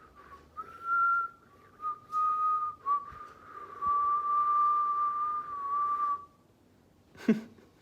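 Whistling: a few long, steady whistled notes that step slightly down in pitch, the longest held for about two seconds. A short rising call follows near the end.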